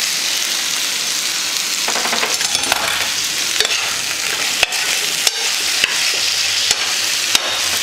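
Chicken sizzling steadily as it fries in a pan, with a few sharp knocks on the granite counter in the second half as onion is cut.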